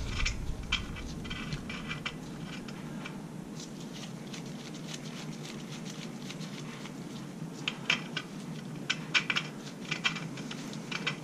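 Scattered light metallic clicks and taps as a gear puller and small engine parts are handled. The clicks are sparse in the middle and cluster in the last few seconds, over a faint steady hum.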